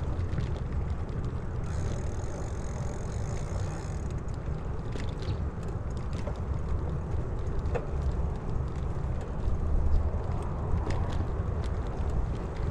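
Wind buffeting a GoPro's microphone on a moving bicycle, heard as a steady low rumble, with a few faint ticks.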